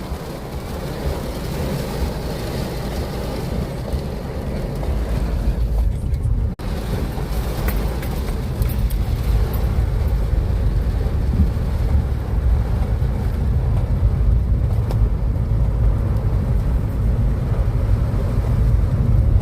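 Storm wind buffeting the microphone as a steady low rumble, with a hiss over it; the sound drops out for an instant about six and a half seconds in.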